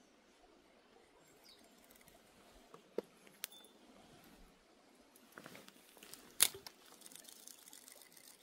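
Small spinning reel and ultralight tackle being handled. There are a few light clicks, then a rustle and a sharp click about six seconds in, and then fast, fine ticking, typical of the reel being cranked on a retrieve.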